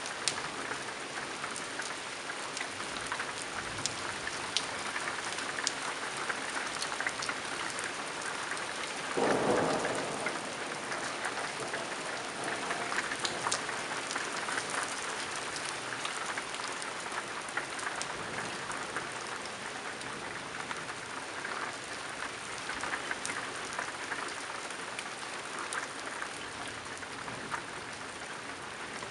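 Steady rain falling on a clay-tiled roof, with single drops ticking close by. About nine seconds in, a short thunderclap lasting about a second stands out above the rain.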